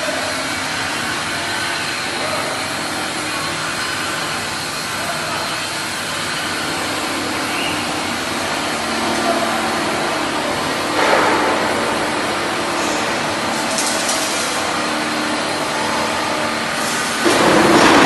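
Steady machinery noise of a steel fabrication workshop, a constant rushing hum with faint tones in it. A louder surge of noise comes about eleven seconds in and again near the end.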